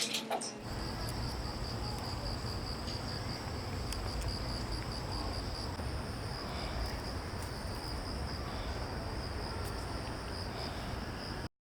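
Crickets chirping in a steady, high, pulsing trill over a low background rumble. The sound cuts off abruptly near the end.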